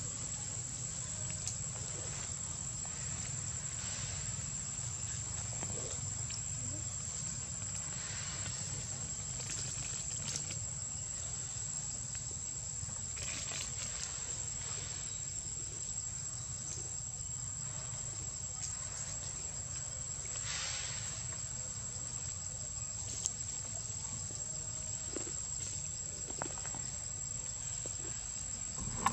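Insects buzzing in the forest: one steady, unbroken high-pitched tone, over a low steady background hum, with a few faint soft rustles.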